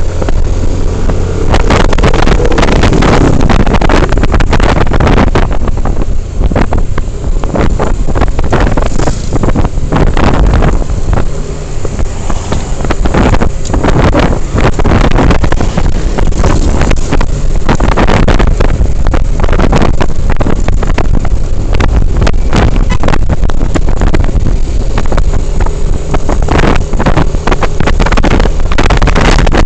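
A vehicle engine running steadily, heavily buffeted by wind on the microphone.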